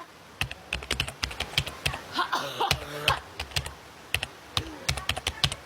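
A run of quick, irregular clicks and taps, like typing, with a short breathy vocal sound a little after two seconds.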